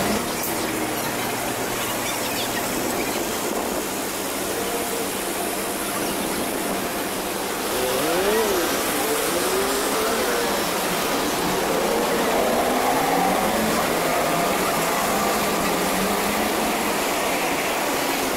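Busy street ambience: a steady wash of traffic noise, with a few passing voices about halfway through.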